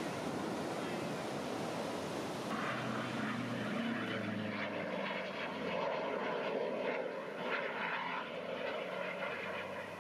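An airplane flying past during an airshow display. Its engine sound comes in about two and a half seconds in over a steady noisy background and keeps on, wavering in pitch.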